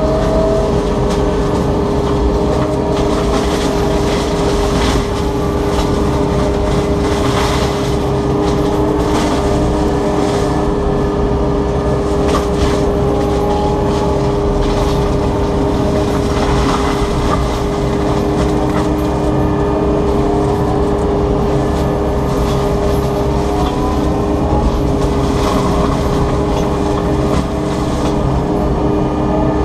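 FAE mulching head on a Takeuchi TB290 9-ton excavator running steadily while mulching alders and grass, with a steady two-note whine over the machine's noise and scattered short crackles of wood being chipped.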